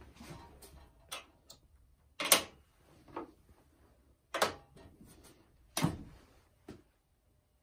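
The lid of a Niton XRF analyzer's shielded test stand being opened and shut, with small gold bars set down on its metal sample plate. It makes a series of sharp clicks and knocks, the loudest a little over two seconds in.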